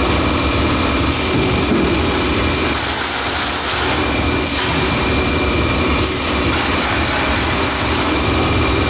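Automatic case erector and carton sealing machine running: a steady motor and conveyor hum with a thin, steady high whine, and stretches of hiss that come and go every second or two as a carton passes through the folding and taping section.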